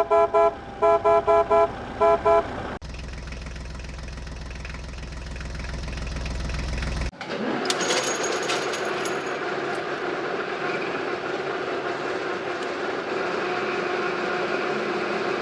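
A vehicle horn tooting in a quick series of short beeps, then a steady low engine hum that gives way about seven seconds in to a fuller, steady engine running.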